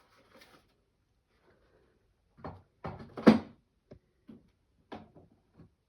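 A series of about seven separate knocks and clicks, the loudest about three seconds in, with no steady drill running.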